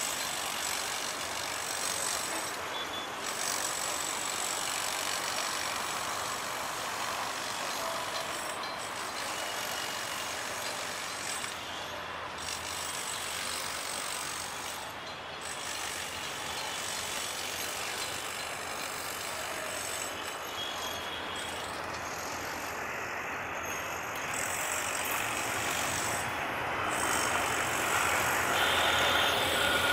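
ALCO WDM-3A diesel locomotive approaching with its passenger train: a steady running noise of engine and wheels on rails that grows louder over the last few seconds as it draws near.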